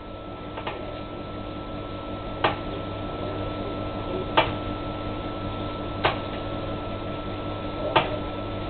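A spoon knocking five times, about every two seconds, as takeaway chicken Madras curry is spooned from its container onto a plate, over a steady hum.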